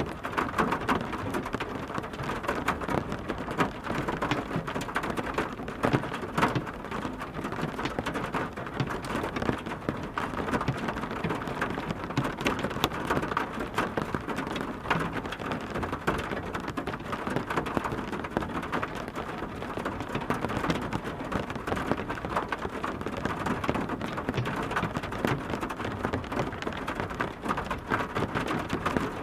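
Steady heavy rain, a dense hiss of drops with many individual drops striking a surface as sharp clicks.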